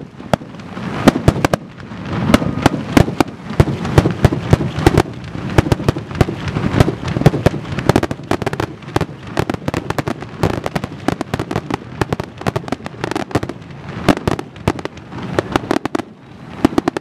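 Fireworks display: aerial shells bursting in quick succession, a near-continuous run of sharp bangs with no real pause.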